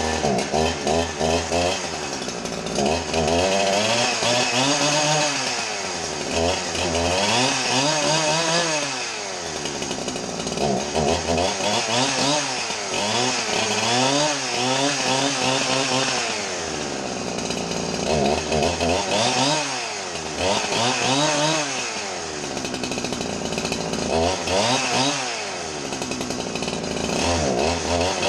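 Husqvarna chainsaw, rebuilt with a Chinese replacement engine, running after a fresh start from cold, with the two-stroke engine revved up and down over and over every couple of seconds. It is warming up after sitting unused for a while.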